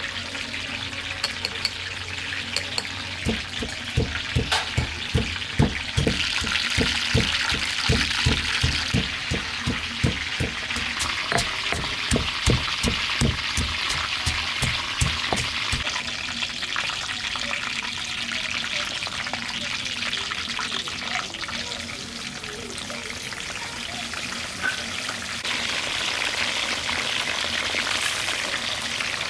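Stir-frying in an oiled pan: steady sizzling, with a spatula knocking and scraping against the pan in quick repeated strokes for the first half. After that only the sizzle goes on.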